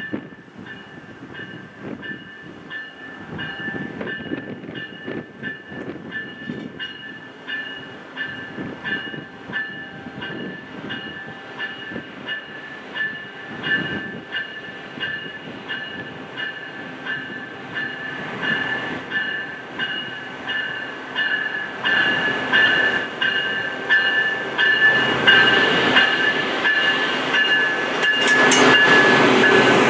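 Siemens Charger diesel-electric locomotive and its passenger cars rolling slowly into a station, growing louder from about two-thirds of the way in as the train draws alongside, with wheels clacking over the rail joints. A bell rings repeatedly over it.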